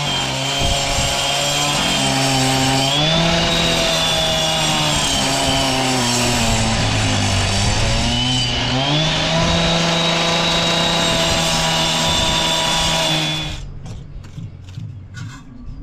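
Two-stroke petrol power saw running at high revs. Its pitch sags twice as it loads into a cut and recovers, and it shuts off near the end, followed by a few light knocks.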